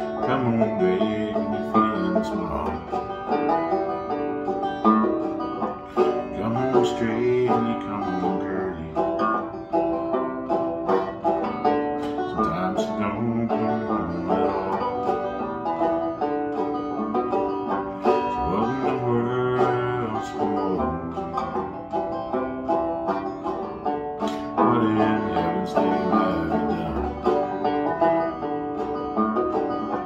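Banjo being picked, playing a country song with a steady stream of quick plucked notes.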